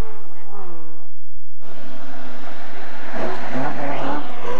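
Rally car engine running hard, fading away, then cut off by a brief dropout about a second in. After it, another rally car comes up on a gravel forest stage, its engine revving higher over a steady hiss of tyres on gravel.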